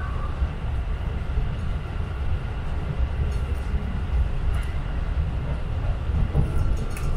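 JR Tokaido Line electric train running at speed, heard from inside the carriage: a steady low rumble of wheels on rails, with a few faint clicks.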